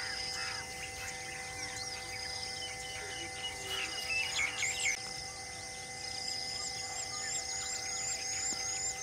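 Several birds chirping and calling, with a flurry of quick calls about four seconds in and a run of short, evenly repeated chirps in the second half, over a steady drone.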